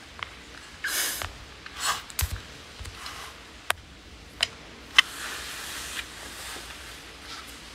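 Handling noise on a phone's microphone: a few brief rustles, then three sharp clicks a little over half a second apart, followed by a soft hiss.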